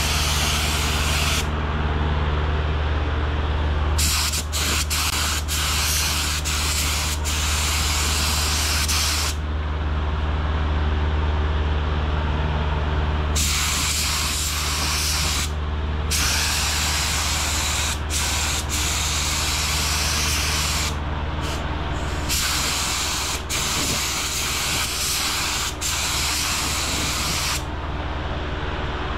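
Paint spray gun spraying sealer, its air hissing in long trigger pulls of several seconds that stop and start again about five times, over a steady low hum.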